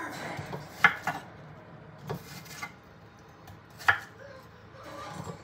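Kitchen knife cutting watermelon on a wooden cutting board: a few sharp knocks of the blade hitting the board, the loudest about a second in and again near four seconds in, with softer cuts between.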